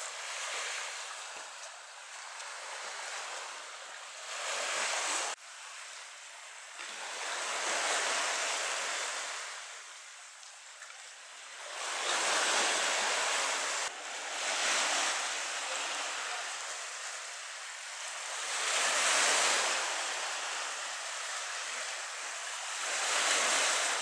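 Small waves of a calm sea washing onto a pebble beach, a hiss of surf that swells and fades every few seconds, with two abrupt breaks in the sound.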